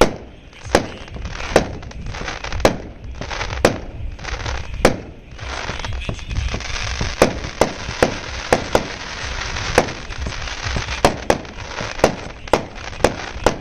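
A 36-shot, 500 g consumer fireworks cake firing its shots: a string of sharp bangs about one a second at first, then a short lull, then quicker and more irregular bangs, with a hissing haze between them.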